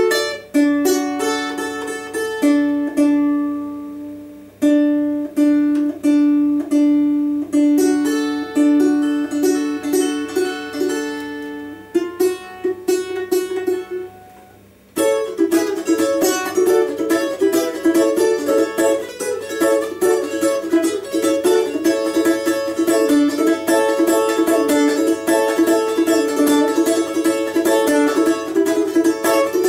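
Four-string balalaika with a doubled first string, tuned to open D major, played solo: a melody of single plucked notes for the first half, then after a brief lull near the middle, fast continuous strumming of chords.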